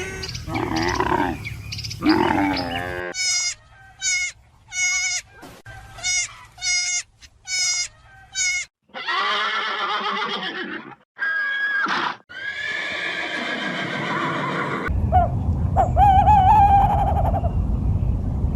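A string of different animal calls, abruptly cut one after another: a run of short, high calls, then longer, harsher calls.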